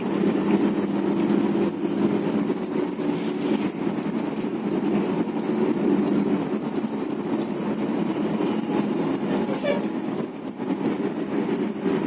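A bus under way: its engine running with a steady hum and road noise.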